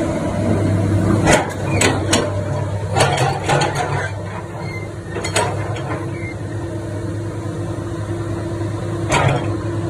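Komatsu PC200-8 excavator's six-cylinder diesel running steadily as the machine swings and moves its boom and bucket. Sharp clanks stand out above the engine: about a second in, twice near two seconds, a quick cluster around three seconds, once past five seconds and once near the end.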